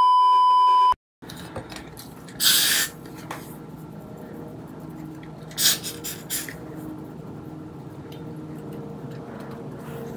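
A steady TV test-pattern beep, the loudest sound, held for about a second and cutting off abruptly. Then an aerosol can of hair glue spray hisses in short bursts onto a wig cap: one about two and a half seconds in, and a few quick ones around six seconds.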